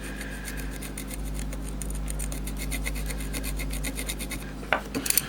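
Rapid scratching strokes of a tool working over the iPhone 5s logic board where the processor was removed, as the board is cleaned. The strokes come several a second and stop about four and a half seconds in. A few sharp clicks follow near the end, over a steady low hum.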